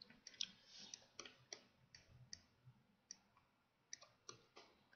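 Faint computer mouse clicks and a keyboard keypress, about a dozen scattered sharp clicks at an uneven pace.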